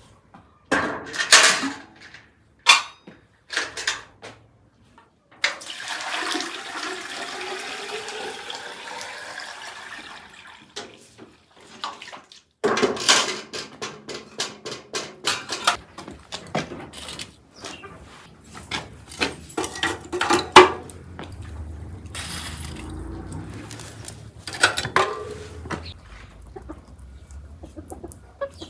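Water poured from a metal bucket into a samovar: a steady splashing pour of a few seconds, with sharp metal clanks and knocks from the bucket and the samovar's lid before and after it.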